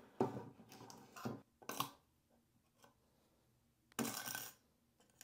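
Faint handling noise: light clicks, knocks and scrapes of a circuit board and plastic parts being handled, with a short scrape about four seconds in.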